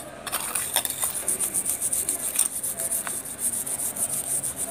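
A toothbrush scrubbing the base of a small silver utensil with tooth powder: quick back-and-forth scratchy strokes, several a second.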